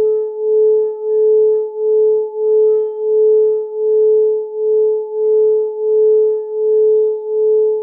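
Singing bowl sounding one steady, sustained tone that swells and fades about one and a half times a second, with a fainter higher overtone.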